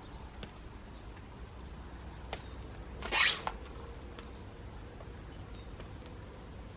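Hands rummaging through damp compost while picking out potatoes: a short scraping rustle about three seconds in, with a few faint taps and clicks around it.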